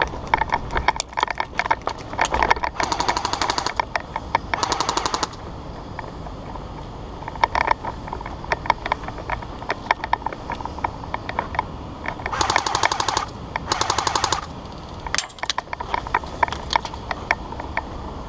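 Airsoft guns firing: four rapid full-auto bursts of about a second each, two a few seconds in and two past the middle, with scattered single shots between.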